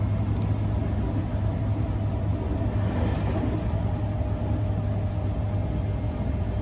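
Electric train running at steady speed, heard from on board: a constant low rumble with a faint steady whine.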